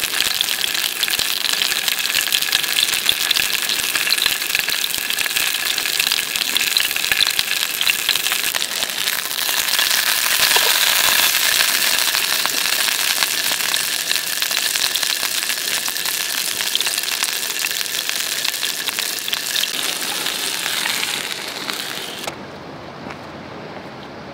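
Mackerel fillet sizzling and spitting in hot oil in a frying pan over a wood fire, a dense crackling hiss. It cuts off suddenly near the end, leaving a quieter outdoor hiss.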